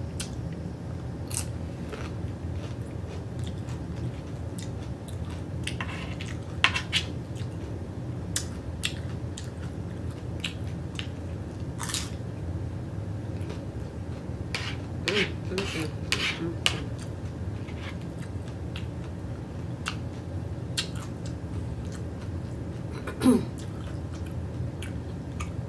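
A person chewing a mouthful of food up close, with many short, sharp mouth clicks and smacks scattered throughout, and a brief hummed vocal sound near the end. A steady low hum runs underneath.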